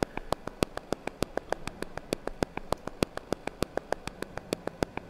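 Glitchy, clicky electronic loop playing back from a DAW: a rapid, uneven stream of sharp digital clicks, roughly seven a second, made from an ordinary audio loop.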